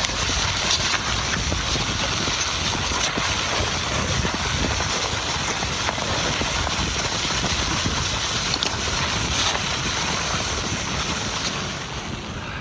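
Wind rushing over the microphone: a steady, loud noise that fades near the end.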